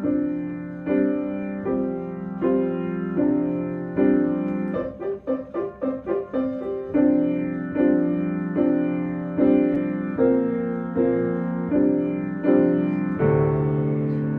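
Piano playing repeated chords at an even pace, a little over one a second, broken in the middle by a quick run of short notes, then returning to the steady chords. A lower, fuller chord sounds near the end.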